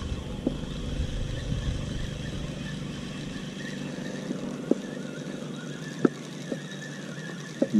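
Spinning feeder reel being cranked to bring in a hooked fish: a steady mechanical whirr with a few sharp clicks.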